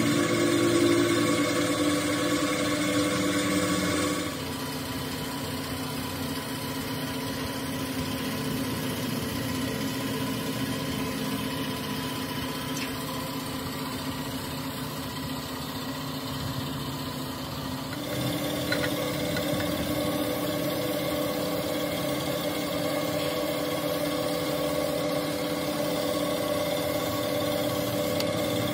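A motor running steadily. Its tone changes abruptly about four seconds in and again about eighteen seconds in.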